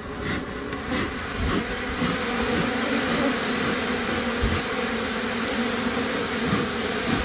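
A mass of honeybees buzzing around their exposed comb, growing louder over the first couple of seconds as more bees take to the air, then holding steady.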